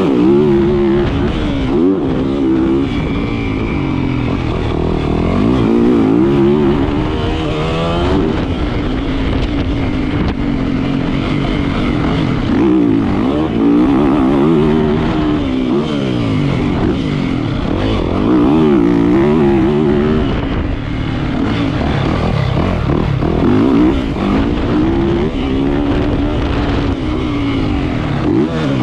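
Yamaha 450 motocross bike's four-stroke single-cylinder engine ridden hard around a dirt track, revving up and falling back again and again as the throttle is opened and closed through the corners and jumps.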